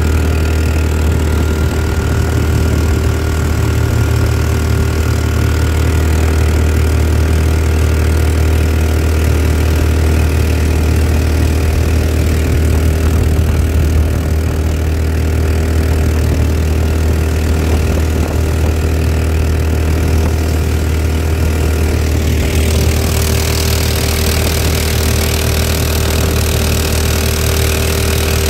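Harbor Freight 459cc single-cylinder engine driving a jon boat's long-shaft mud motor, running steadily under way. About three-quarters of the way through, a rushing hiss of spray and wind grows louder over the engine note.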